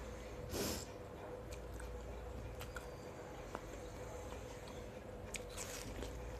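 Watermelon being bitten and chewed up close: soft chewing with scattered small wet clicks, a brief burst of noise about half a second in and another bite near the end. A faint steady hum runs underneath.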